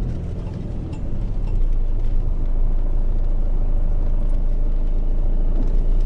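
Car engine and tyre noise heard from inside the cabin of a moving car: a steady low rumble.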